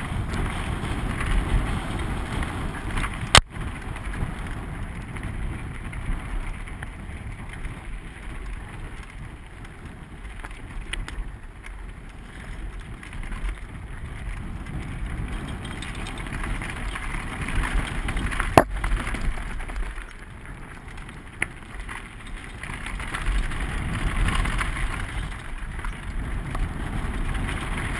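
Mountain bike rolling fast down a rocky dirt trail, its tyres and frame rattling under wind noise on a helmet-mounted camera. Two sharp knocks come through, a few seconds in and about two-thirds of the way through.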